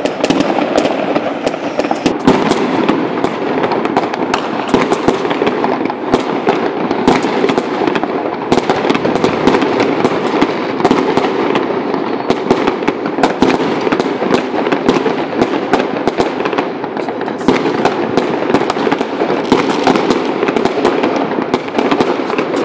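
Fireworks and firecrackers going off all over a city at once: a constant din of distant explosions with many sharp bangs and pops on top, never pausing.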